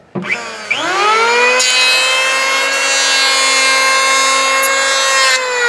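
Porter-Cable 6 amp electric hand planer switched on, its motor whine rising quickly to full speed. It then planes wood for about four seconds, adding a loud rushing noise. Near the end the cutting stops and the motor is switched off, its whine falling in pitch as it winds down.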